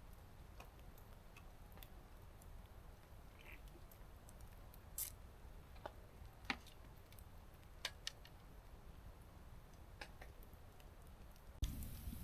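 Wood campfire crackling faintly, with scattered sharp pops every second or two over a low steady background. A louder background comes in suddenly near the end.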